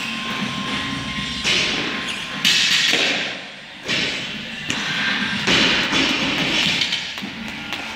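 Jump rope turning and slapping the rubber gym floor, with repeated thudding landings of the feet as she skips.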